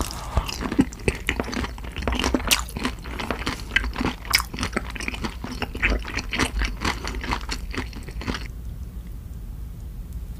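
Chewing a mouthful of sauce-coated fried shrimp (saewoo gangjeong), with many quick, sharp crackles that stop about eight seconds in.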